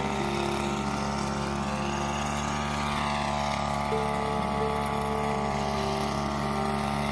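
Small engine of a motorized backpack pesticide sprayer running steadily at an even speed, with background music.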